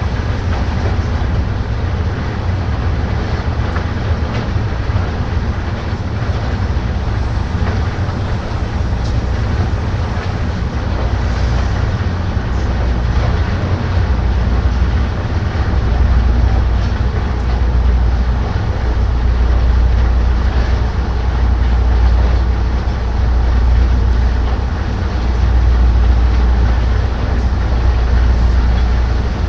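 Heavy machinery aboard a dredger running steadily with a deep rumble and mechanical noise, the rumble growing louder about halfway through.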